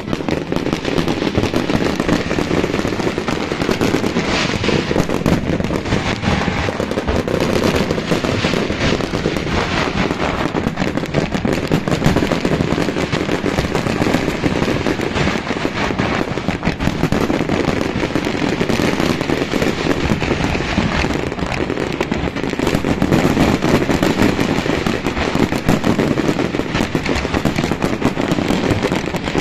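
Large aerial fireworks display: a dense barrage of bangs and crackling from many shells bursting at once, closely packed and without let-up.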